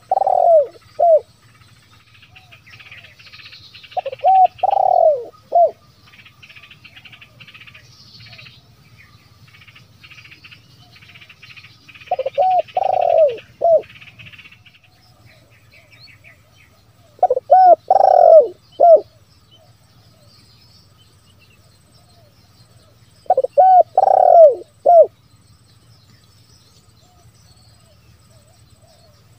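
Spotted dove (terkukur) cooing, its 'kuk, 1 lambung, kuk' song repeated about every five to seven seconds, each phrase a short burst of deep coos. Smaller birds chirp faintly between the calls in the first half.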